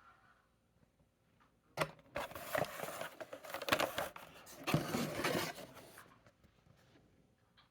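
A sharp click, then about four seconds of rubbing and scraping as a cardboard case and its packaging are handled.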